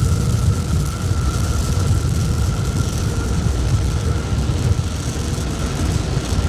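SpaceX rocket engines during ascent: a loud, steady low rumble of the exhaust as the rocket climbs after liftoff.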